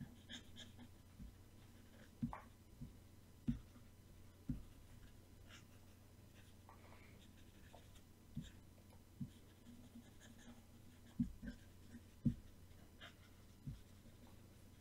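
Faint, irregular clicks and taps of hand input at a computer desk, about a dozen, over a steady low electrical hum.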